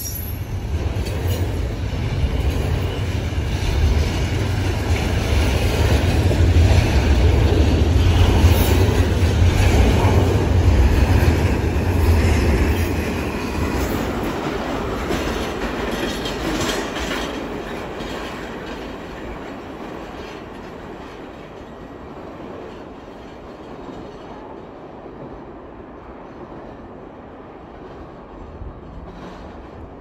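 A train rolling past with a deep rumble of wheels on rail, loudest through the first dozen seconds, then fading steadily as it moves away.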